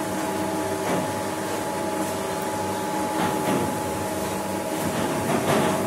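Steady machine hum made of several held tones under an even hiss, unchanging throughout.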